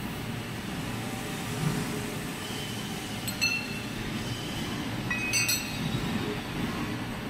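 Steady low machine-shop rumble, with sharp metallic clinks of steel tools against a large lathe's chuck: one about three and a half seconds in and two close together a couple of seconds later.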